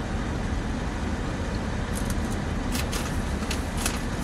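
Steady low rumble of car noise heard inside a car cabin, with a run of short, crisp clicks from about two seconds in.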